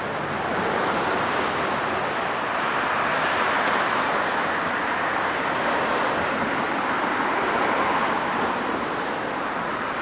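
Steady rushing noise, even and unbroken, strongest in the middle range.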